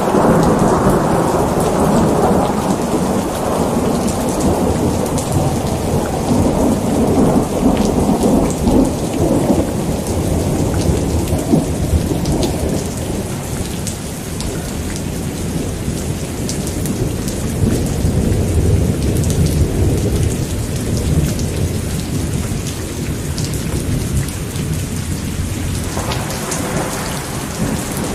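Steady heavy rain with thunder. A long roll of thunder opens and dies away over about ten seconds, a lower rumble comes back midway, and another starts to build near the end.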